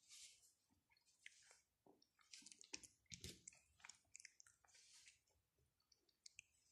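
Faint rustling and scratching of felt pieces being pulled off and handled on a fabric quiet book, with small clicks among them: a few short scratchy rustles, busiest in the middle.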